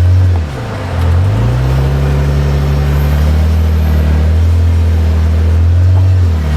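Jeep JK's engine working under load while crawling up a rocky obstacle, its pitch dipping and climbing back about half a second in and again near the end.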